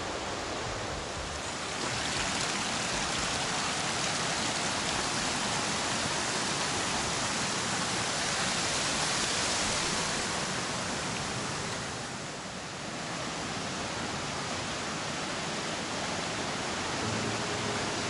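Fast mountain stream rushing and splashing over rocks: a steady water noise that dips slightly about twelve seconds in.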